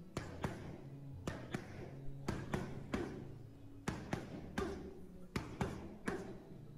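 Boxing gloves slapping into focus mitts in quick combinations: sharp smacks, mostly in pairs about a quarter second apart, a dozen or so strikes.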